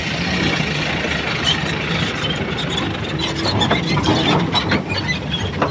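Diesel engines of a Kobelco SK200 excavator at work and a dump truck driving past close by, running steadily, with a run of clanks and rattles from about three and a half seconds in.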